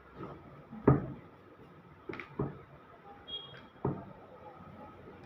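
Chiropractic adjustment: four short knocks, the loudest about a second in, a quick pair around two seconds and one more near four seconds.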